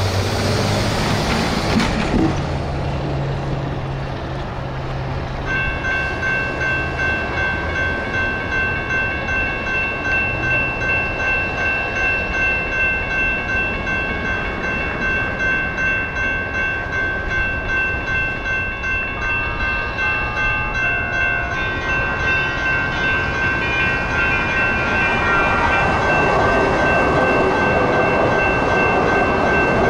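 Train noise rushes past at first. About five seconds in, railroad crossing bells start ringing in a steady, rapid pulse, and a second bell joins later. Near the end the rushing noise of a train grows louder under the bells.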